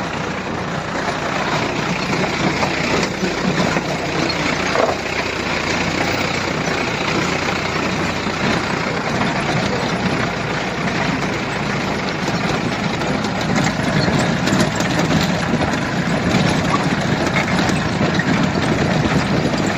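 Jeep engine running steadily as the vehicle drives over a rough dirt track, with the noise of the ride and many small knocks throughout.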